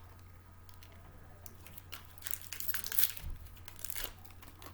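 Snack packaging crinkling and rustling in bursts, the longest about two to three seconds in and a shorter one near the end.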